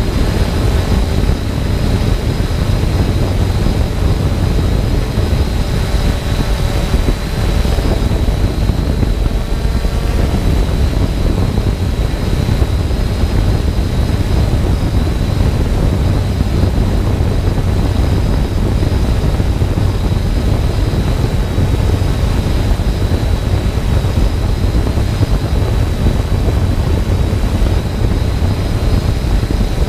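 Multirotor camera drone hovering: its propellers give a steady high whine over a heavy rumble of wind on the microphone.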